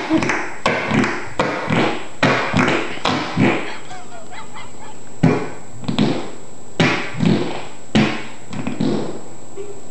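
Fart-like noises made by a boy's back against the floor: a string of short, honking bursts, about a dozen, with a pause in the middle.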